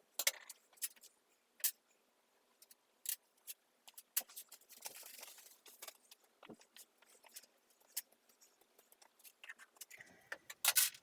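Scattered light metallic clicks and clinks of hand tools and fasteners being handled, irregular and without a steady rhythm, with a brief hiss about five seconds in.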